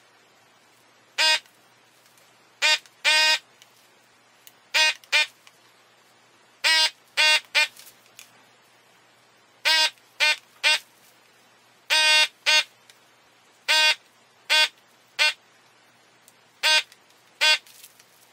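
Electric desoldering gun's built-in vacuum pump buzzing in short bursts, about eighteen times, each under a second, as it sucks molten solder off the slider pins of a circuit board.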